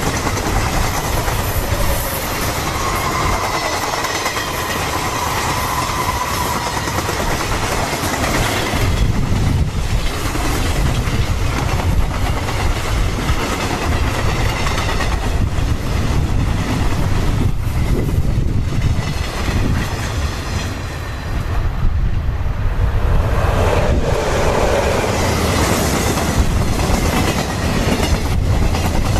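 Freight train wagons rolling past at close range: steady loud rumble with the wheels clicking over the rail joints, and a faint high wheel squeal in the first several seconds.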